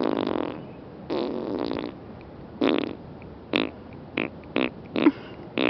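Imitation fart noises blown with the mouth: two longer buzzing raspberries, then a run of shorter, sharper ones, about seven in all.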